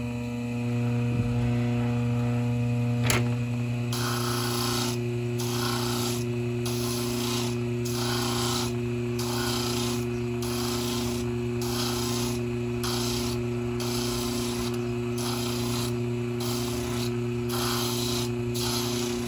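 A homemade sander driven by a washing-machine motor runs with a steady hum. A keychain wheel is pressed against its abrasive drum to grind it down. From about four seconds in, the grinding comes in short rasping strokes about once a second.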